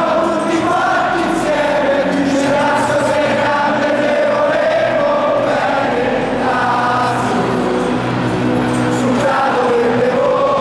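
A huge stadium crowd of football supporters singing a song together, a mass of voices in long held notes.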